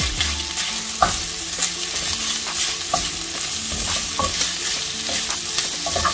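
Ground chicken and vegetable filling sizzling in a skillet while a wooden spoon stirs and scrapes through it, with scattered light clicks of the spoon against the pan.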